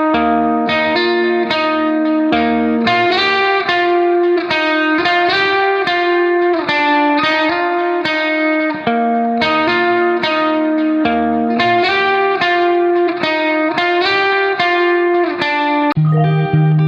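Background music: plucked guitar notes in a quick steady picking pattern, with a deeper bass line coming in near the end.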